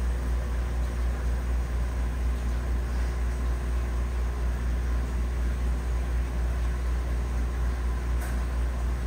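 Steady low hum and rush of aquarium equipment running, with a faint short tick near the end.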